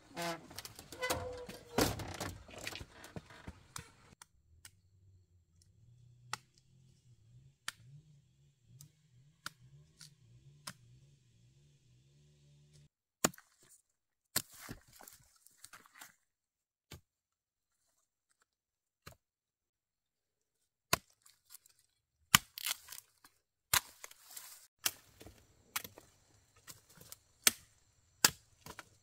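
Irregular sharp knocks and chopping strikes, sparse at first and then coming in quick clusters near the end. A faint low pulsing drone runs underneath for several seconds near the start.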